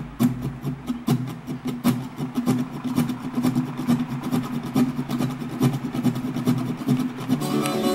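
Diesel-electric freight locomotives passing with a steady, low engine drone and many sharp, irregular clicks. Stringed music comes in near the end.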